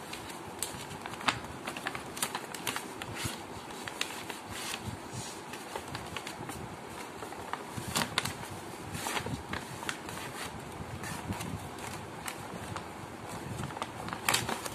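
A sheet of coloured paper being folded and pressed into creases by hand: irregular rustling and sharp crackles of the paper.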